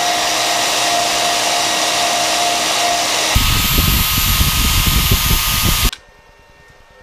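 A WEN band saw running steadily as it cuts through a strip of 1-inch steel C-channel clamped in a vise. About three seconds in, the sound changes to a Hitachi angle grinder dressing the cut end of the strip, a harsher, heavier grinding that cuts off suddenly near the end.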